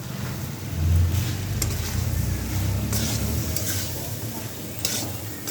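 Spatula stirring and scraping soya chunk fried rice in a hot pan, with a steady sizzle and a low rumble underneath; a few louder scrapes stand out.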